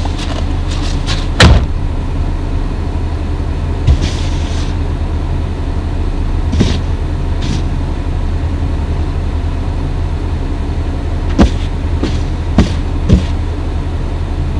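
A car's engine idling, heard from inside the closed cabin as a steady low hum. A car door shuts with a loud thud about a second and a half in, and later there are brushing scrapes and a few knocks as snow is swept off the rear window.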